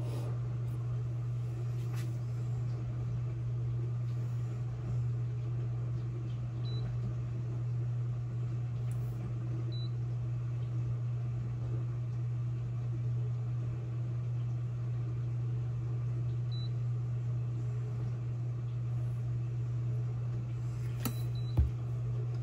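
Digital slow cooker's control panel giving short high beeps as its buttons are pressed to set the cook time to seven hours on low: single beeps spread apart, then two in quick succession near the end, followed by a click. Under them is a steady low hum.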